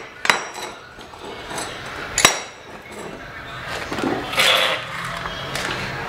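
Sharp metallic knocks and clinks from a water heater's metal electric heating element being handled and set down on a concrete floor, two loud knocks about a quarter second and two seconds apart, with rustling handling noise near the end.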